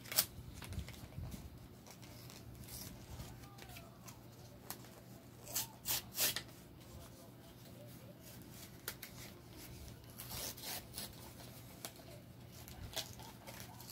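Trading cards and booster-pack wrappers being handled: scattered short rustles and clicks, with a cluster about six seconds in and more around ten to eleven seconds, over a low steady hum.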